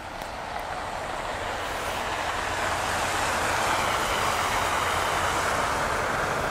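Traffic on a wet, slushy road: a hiss of tyres through slush over a low rumble, swelling over the first few seconds and then holding steady.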